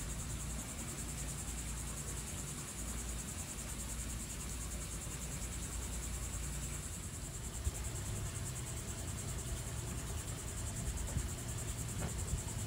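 A steady, high-pitched insect chorus with a fast, even trill, over a low rumble.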